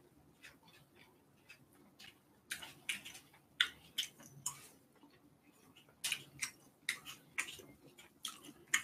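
Close-miked mouth sounds of someone eating: irregular wet clicks and smacks of chewing, sparse at first, then in two busier spells.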